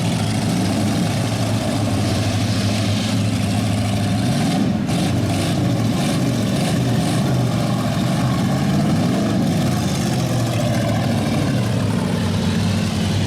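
Engines of stock demolition derby cars running together, a dense, loud engine noise with pitch rising and falling as they rev. A few short knocks come about five to seven seconds in.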